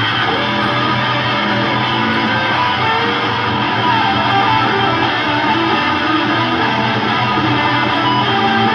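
Electric guitar playing a rock riff through a guitar amplifier's speaker, which serves as the recording monitor, along with a backing track.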